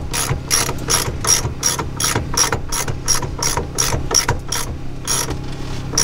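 Ratchet clicking in a quick, even rhythm, about four clicks a second, as a three-point crimper is cranked down to crimp a copper lug onto a heavy battery cable.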